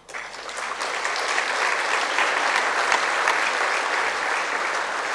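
Audience applauding. It starts suddenly, builds over the first second, holds steady and eases off near the end.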